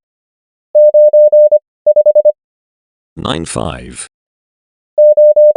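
Morse code practice tone, a single steady beep keyed at 25 words per minute, sending the number 95: four dashes and a dot for 9, then five quick dots for 5. About five seconds in, the next character starts as a run of long dashes, the first of the five dashes of a 0.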